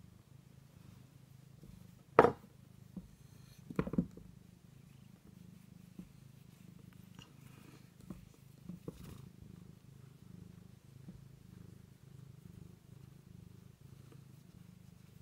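Domestic cat purring steadily as it rubs its cheek and chin against a hand. Two loud bumps come about two and four seconds in, with a few faint clicks later.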